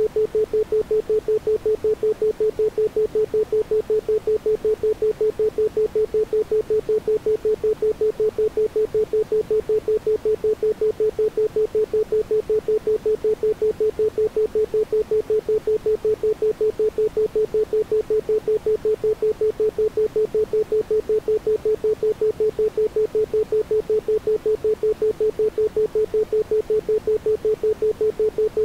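Isochronic tone: a single pure tone at a 432 Hz base frequency, pulsing on and off evenly several times a second, with nothing else behind it.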